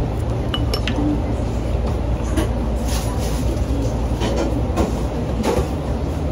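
Steady low rumble of restaurant room noise, with a few light clinks of chopsticks and tableware, the first about half a second in.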